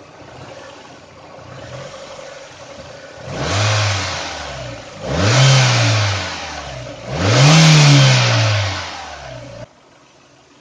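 Mazda MX-5 Miata's four-cylinder engine revved three times in quick blips over a quieter idle, the pitch rising and falling each time with a strong intake hiss. Near the end the sound drops abruptly to a faint hum.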